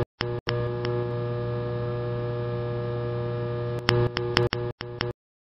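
Steady electrical hum with a low buzz and several higher steady tones, broken by a few sharp clicks and brief dropouts near the start and again in a stuttering run near the end, then cutting off abruptly about five seconds in.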